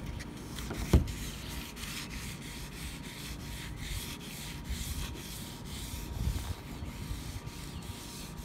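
Fine-grit sandpaper rubbed by hand in quick back-and-forth strokes over a freshly painted rubber roof molding, color sanding the paint smooth. A single sharp knock about a second in.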